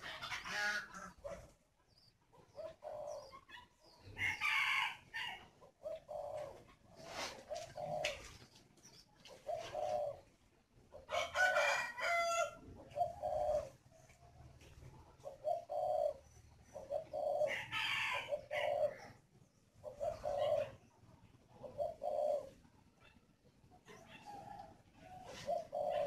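Spotted doves cooing again and again, short low coos in phrases: the breeding call a male gives to urge the hen to lay. Four or five louder, higher-pitched calls from other birds break in, the longest about 11 seconds in.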